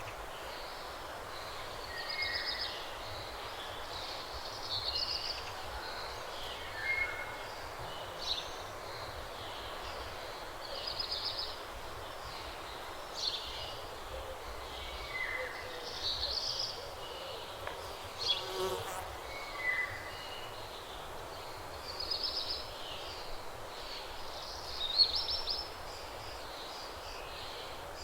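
Nature ambience: short, high-pitched chirping and trilling calls every second or two over a steady hiss.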